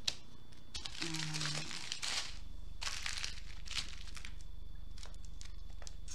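Small plastic bags of diamond-painting drills crinkling and rustling as they are picked up and handled, in two main bursts, with a few light clicks later on.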